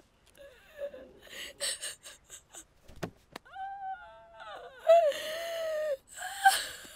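A person's voice: short breathy gasps, then a sharp knock, then a high wailing cry held for about two and a half seconds, ending in a loud burst near the end.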